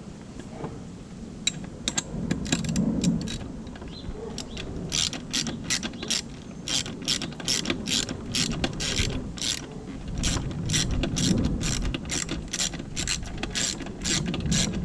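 A ratchet wrench clicking as bolts are run down: a few scattered clicks at first, then quick repeated strokes, about two to three a second, from about five seconds in.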